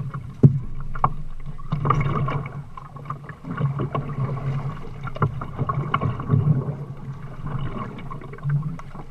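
Kayak paddling: water splashing and churning with the paddle strokes, with occasional sharp knocks of the paddle on the plastic hull at irregular intervals.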